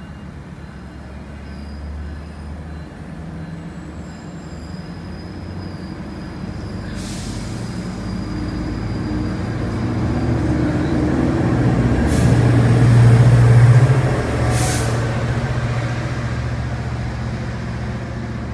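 A GO Transit passenger train rolls by: bilevel coaches clatter past, then an MP40PH-3C diesel locomotive's engine drone swells, loudest about 12 to 14 seconds in, and fades as it goes. Three short hisses break in along the way.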